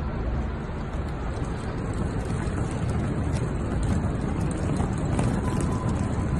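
Small wheels of a trolley bag rolling over concrete pavement as it is pulled along, a steady rough noise with faint clicks.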